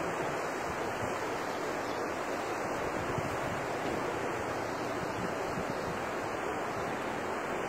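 Wind blowing across a phone's microphone outdoors: a steady rushing noise with no breaks.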